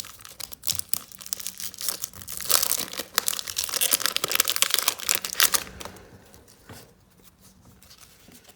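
A trading card pack wrapper being torn open and crinkled in the hands: a dense run of crackling for about six seconds, then only faint handling noises.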